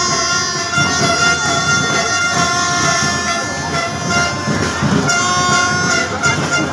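Football crowd blowing horns in the stands: several long steady horn notes at different pitches overlap and come and go, over the noise of the crowd.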